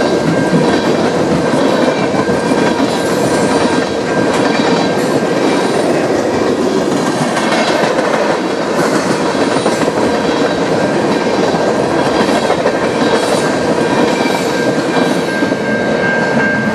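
Freight train tank cars rolling past at close range, their wheels clacking steadily over rail joints, with a thin steady high squeal from the wheels.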